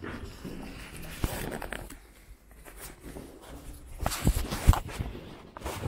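Footsteps with scattered knocks and thumps, a cluster of louder thumps about four seconds in.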